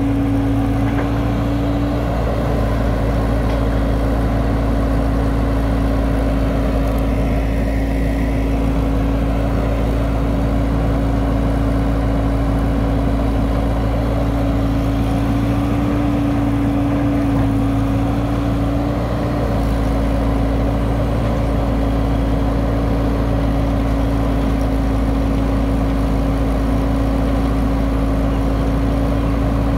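A crawler excavator's diesel engine running steadily as it digs soil and loads it into a dump truck, with a constant pitched hum over a low drone.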